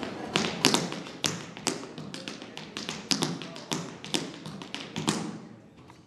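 Tap shoes striking a stage floor in a solo, unaccompanied tap dance: quick, irregular taps in rhythmic clusters that stop about five seconds in.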